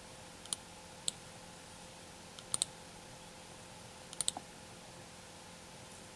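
Computer mouse clicking: two single clicks, then a quick double-click, then a fast burst of three clicks, over a faint steady hum.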